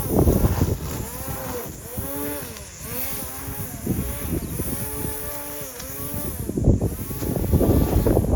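Lawn mower engine running, its pitch repeatedly dipping and recovering about once a second, with bursts of rough, loud noise near the start and near the end.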